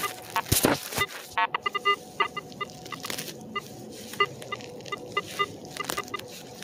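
Metal detector beeping in short, repeated pitched pulses as it is swept over a buried metal target, with a quick run of beeps about a second and a half in. Scraping and rustling from hands working through dry grass.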